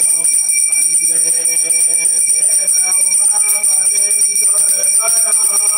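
A brass puja hand bell rung continuously, a steady jangling ring.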